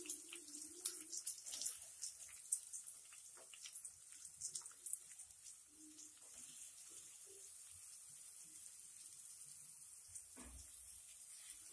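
Chopped onions dropped into hot oil in a metal kadai, sizzling with a faint steady hiss and scattered light crackles and ticks over the first few seconds. A single dull knock about ten seconds in.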